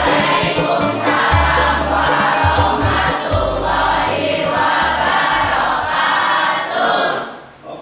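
Background music: a song with choir-like group singing over a bass line, fading out about seven and a half seconds in.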